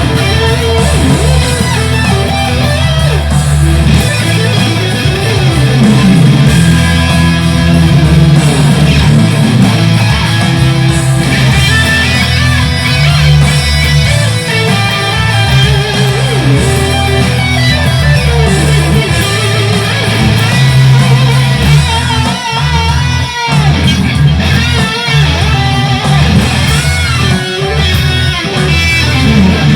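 Electric guitar, a Fender Stratocaster played straight into a Boss Katana amplifier, improvising with sustained notes. From about two-thirds of the way in, the notes waver strongly in pitch.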